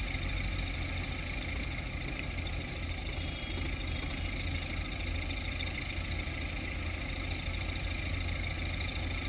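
Heavy diesel engine running steadily at low revs, a low even drone with no change in pace.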